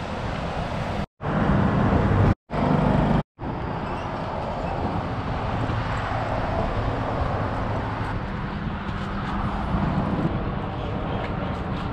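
Wind and road noise rushing over a hand-held GoPro Hero 7's microphone during a bicycle ride: a steady noisy rush, broken three times by brief gaps of silence in the first few seconds, with the short stretches between them louder.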